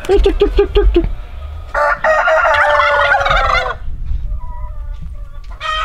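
Poultry calling: a quick run of pulsed notes in the first second, then a rooster crowing for about two seconds, and fainter short calls near the end.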